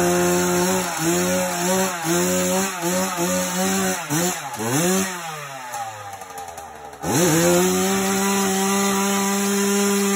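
Two-stroke engine of a 1984 Yamaha YZ80, a liquid-cooled 80cc single, revving in quick repeated blips of the throttle. About five seconds in it falls away to a low pitch, then about seven seconds in it rises sharply and is held at a steady high rev.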